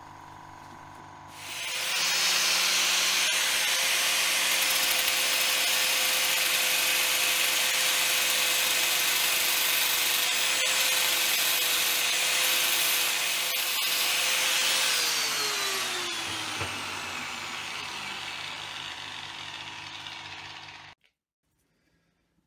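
Handheld power grinder running on a high-speed steel end mill tip, a loud steady grinding hiss over a motor tone. About two-thirds of the way through, the motor tone drops in pitch, and the sound stops abruptly near the end.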